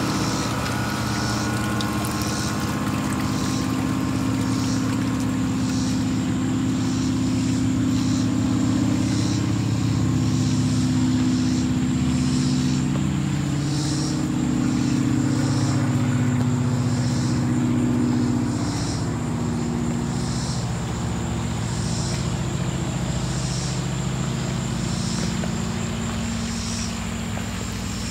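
A steady, engine-like motor drone whose pitch shifts slowly every few seconds. A faint high chirp repeats about once a second over it.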